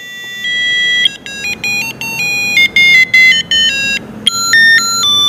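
Cube-shaped colour-change digital alarm clock playing one of its built-in electronic alarm ringtones, heard close up: a quick beeping tune whose notes step up and down in pitch. It breaks off briefly about four seconds in, then the beeping resumes, as the ringtones are cycled to choose one.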